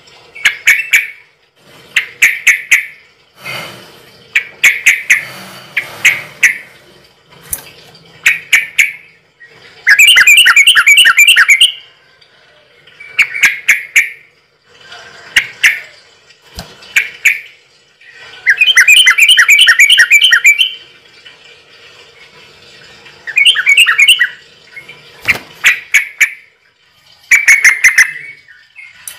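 A bird calling repeatedly and loudly, in short bursts of rapid notes every second or two, with two longer trills about ten and nineteen seconds in.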